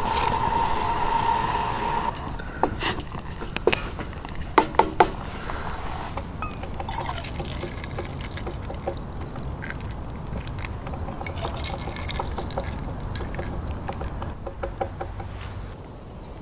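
Liquid pouring from a camp coffee maker, with a steady ringing tone for about two seconds, then several sharp clinks of cups or metal, then faint scattered ticks.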